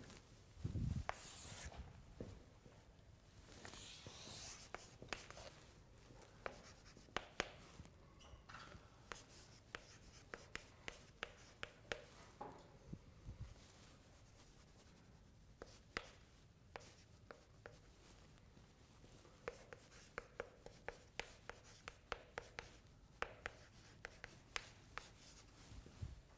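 Chalk writing on a blackboard: a faint, steady run of short taps and scratches as letters and symbols are chalked out, with a dull thump about a second in.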